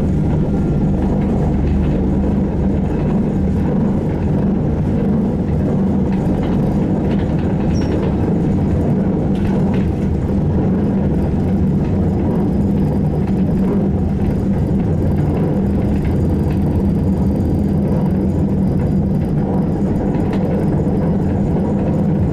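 Steady cabin noise of a SVARZ-MAZ-6235.00 trolleybus under way: a dense low rumble from the running gear and electric drive, with faint rattles. A faint high whine comes in during the second half.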